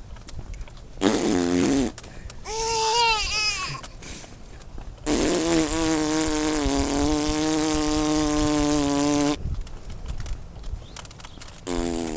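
An adult making fake fart sounds: a short one about a second in, a long steady buzzing one lasting about four seconds from about five seconds in, and another starting near the end. Between the first two, a five-month-old baby laughs in short, choppy bursts.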